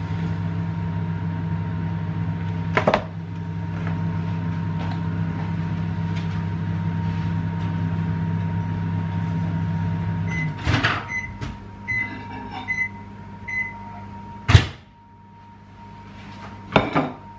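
Microwave oven running with a steady hum while it heats a sachet of chili beef. The hum stops about ten seconds in, and a string of short beeps signals that the cooking is done. A loud click follows as the door is opened, then a couple of knocks near the end.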